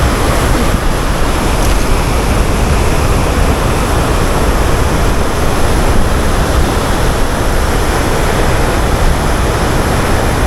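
Dam outflow water rushing and churning in the spillway below, a loud steady rush of whitewater.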